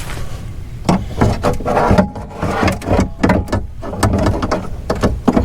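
Irregular knocks and clicks of a car door's window glass and plastic track being handled, as the glass is worked loose from the regulator clip that holds it.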